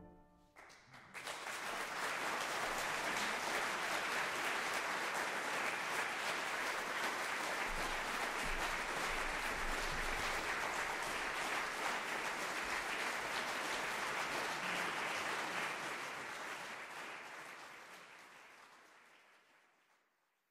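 Crowd applause that comes in about a second in, holds steady, then fades away over the last few seconds.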